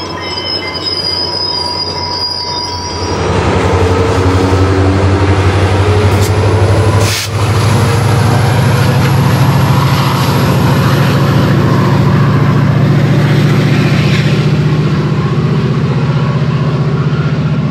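For the first few seconds the steel wheels of passing Bombardier bilevel commuter cars squeal with steady high tones over rail noise. Then the MP36PH-3C diesel locomotive's 16-cylinder EMD two-stroke engine runs loud and steady under heavy throttle, with a deep drone, as the train pulls out.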